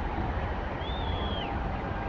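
City street ambience: steady traffic noise with a low rumble from the jammed road, and one short high whistle about a second in.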